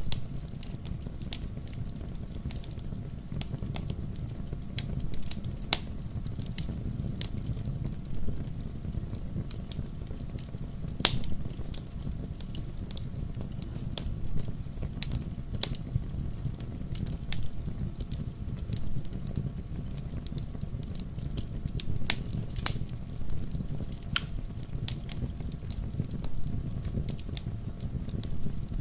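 Bonfire crackling and popping with irregular sharp snaps, a few louder pops among them, over a steady low rumble of the burning fire.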